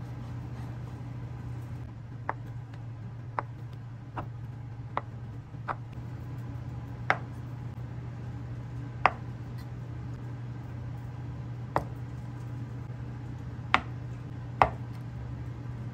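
A chef's knife slicing through a block of acorn jelly (muk) and knocking down onto a cutting board: about ten separate taps at uneven intervals, the later ones louder, over a steady low hum.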